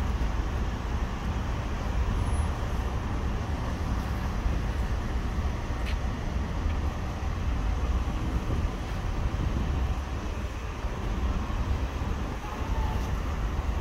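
Steady outdoor city-street noise: a low rumble of road traffic, with no distinct event standing out.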